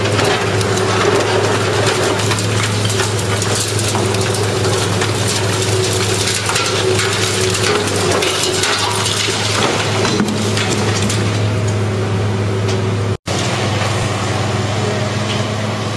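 Heavy demolition machinery running with a steady engine drone, over irregular crunching and cracking of concrete and debris being broken down. The sound cuts out for an instant about thirteen seconds in.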